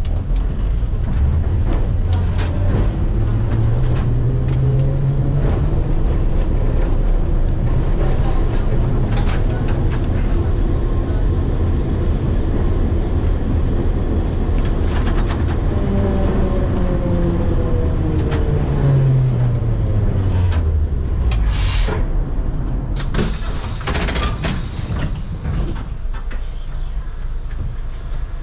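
Old electric tram running, heard from the driver's cab: the traction motor whine rises as the tram accelerates in the first few seconds, holds under steady running with knocks and rattles, then falls as it slows about two-thirds of the way through. A few short hissing bursts follow near the end.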